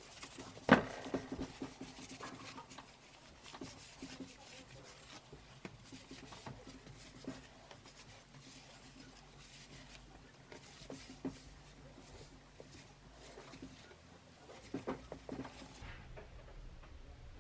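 A cloth wiping the steel face of an ACT lightweight flywheel, a soft rubbing with small taps and clicks of handling. There is a sharp knock about a second in and a few more knocks near the end as the flywheel is moved on the bench.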